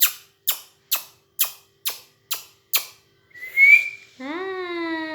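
A parrot's swing clicking rhythmically as it rocks, about two sharp clicks a second. The clicking stops near three seconds in. A short high whistle follows, then a drawn-out pitched call that slides in pitch.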